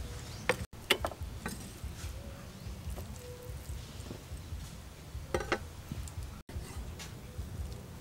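A few scattered knocks of a knife and beef chunks on a wooden chopping board, around half a second and a second in and again past five seconds, over a low steady background rumble.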